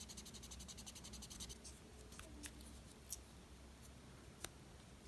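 Fast, even scrubbing strokes, about ten a second, on the small knife blade of a Leatherman Squirt multi-tool as it is cleaned; the scrubbing stops about one and a half seconds in. A few light clicks of the tool being handled follow.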